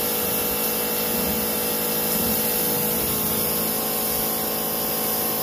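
Sun Joe pressure washer running steadily while its wand sprays water onto a truck: an even pump-and-motor hum under the hiss of the spray.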